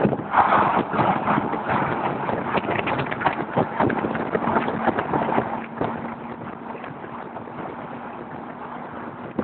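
Car driving at motorway speed, with wind buffeting the microphone. A faint steady drone comes through from about four seconds in, and the buffeting eases off a little after about six seconds.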